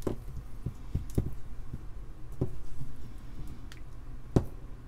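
Scattered small clicks and knocks from hands handling fine wires and small tools on a workbench, about half a dozen in all, the sharpest about four and a half seconds in, over a steady low hum.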